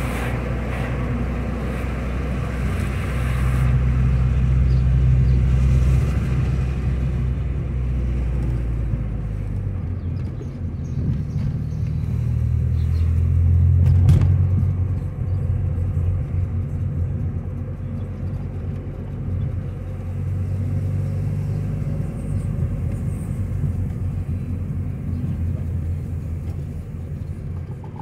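Car engine and road noise heard from inside the cabin while driving. The engine note rises and falls with speed, and a single sharp click comes about halfway through.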